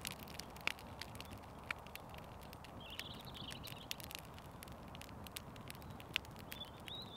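Small campfire of well-seasoned firewood crackling, with irregular sharp pops and snaps over a faint hiss.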